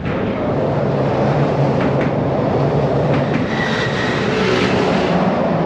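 Loud, steady rumble of traffic crossing the open steel-grate deck of the bridge overhead. It starts suddenly and hums on throughout, with a faint whine about halfway through.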